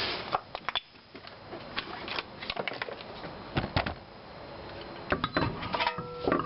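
A car wheel and tire being handled and fitted back onto the hub studs: scattered clunks, knocks and metallic clicks, with a brief tone near the end.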